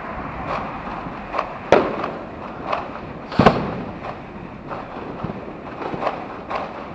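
Firecrackers and fireworks going off around the streets: a steady din of distant bangs with scattered sharper pops, and two loud bangs close by, one near the middle and a second one about a second and a half later.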